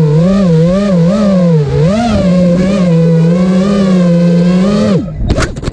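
Eachine Wizard X220 racing quadcopter's Emax RS2205 2300kv brushless motors and props running with a loud whine whose pitch rises and dips with throttle changes. About five seconds in the motors cut out abruptly, followed by a few sharp knocks.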